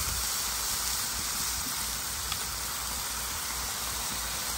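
Corned beef sizzling steadily on a hot Blackstone flat-top griddle, an even hiss.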